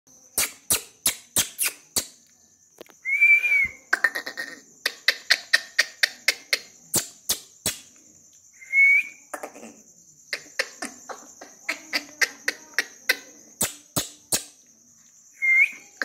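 Indian ringneck parrot giving three short squawks about six seconds apart, each arching up and down in pitch, amid a run of sharp clicks, several a second. A steady high-pitched tone runs underneath.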